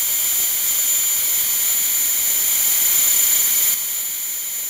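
High-pressure compressed air hissing steadily, with a thin high whistle, as it flows from the fill tank into a PCP air gun and straight out again: the gun's firing valve is stuck open, so the air escapes instead of charging the reservoir. The hiss drops a little in level near the end.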